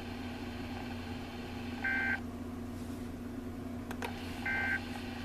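Two short bursts of EAS/SAME digital data tones, about two and a half seconds apart: the end-of-message signal that closes a NOAA Weather Radio warning. Steady radio hiss and hum run underneath.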